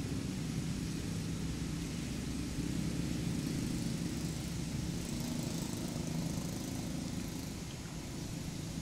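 Steady low hum of an engine running, with no change in pitch or level.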